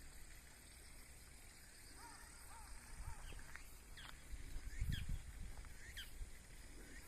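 Birds calling: a run of short arched notes starting about two seconds in, followed by sharper rising chirps repeated every half second or so. A low rumble comes about five seconds in.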